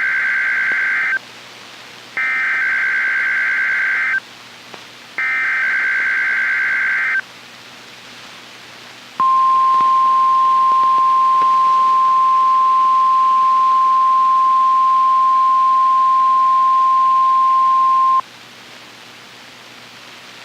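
NOAA Weather Radio test signal: three bursts of the SAME digital alert header, a buzzing data screech of about two seconds each with a second of radio hiss between (the first already under way at the start). Then the steady single-pitched warning alarm tone sounds for about nine seconds and cuts off suddenly, leaving faint receiver hiss.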